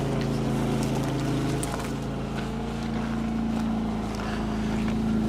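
A motor running steadily with a low, even hum; its deeper tones shift slightly about a second and a half in.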